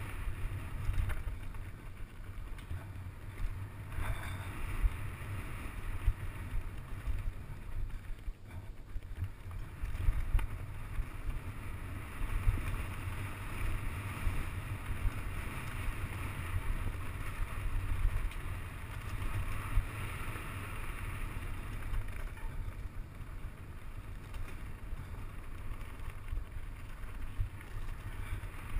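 Wind buffeting the camera microphone while a mountain bike descends a rocky dirt trail, with the uneven rumble and rattle of the tyres and bike jolting over the ground.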